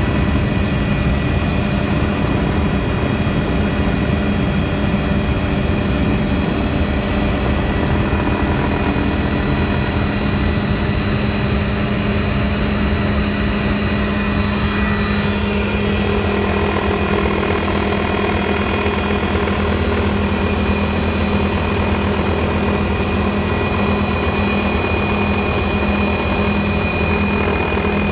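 Tour helicopter in flight: the turbine engine and rotor run as a loud, constant drone with steady high whining tones.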